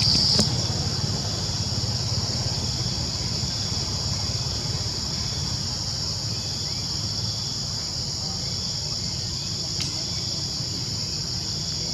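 Steady, high-pitched insect chorus, one unbroken shrill drone, over a low background rumble.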